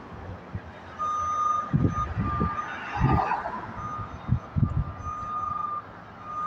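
Front-loader garbage truck's backup alarm beeping: one steady high tone, on and off repeatedly, starting about a second in. A car passes close by around three to four seconds in, and there are a few low thuds.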